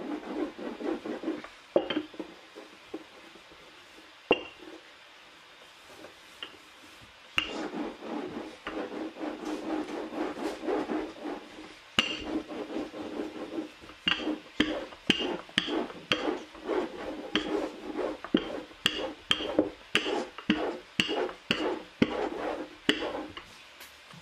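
A wooden rolling pin rolling back and forth over starch-dusted baklava dough on a wooden board, a rubbing rumble with light knocks at each stroke. After a quieter stretch near the start, the strokes come quicker and sharper, about two a second, through the second half.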